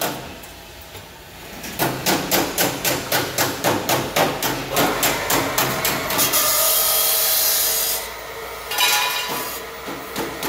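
Hydraulic square-tube cutting machine cutting steel box-section, its die clacking shut in a fast even rhythm of about four strokes a second. A steady hiss lasts about two seconds in the middle, and the clacking picks up again near the end.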